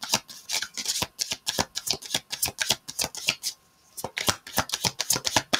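Tarot cards being shuffled by hand: a rapid run of sharp card clicks, about six a second, with a brief pause a little past halfway.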